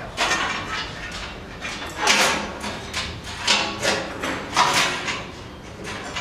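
Irregular clattering and scraping of a steel band saw blade and machine parts being handled as the blade is fitted onto the band wheels of a Pilous CTR 800 S log band sawmill. There are sharp knocks and rattles several times a second, with the loudest ones about two seconds in and again near four and a half seconds.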